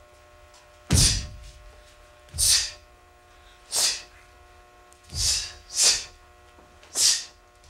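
Sharp, hissing exhalations of a Taekwon-Do practitioner performing a pattern, one with each technique, six in all at irregular spacing; a few come with a low thud as a foot lands. A faint steady hum lies underneath.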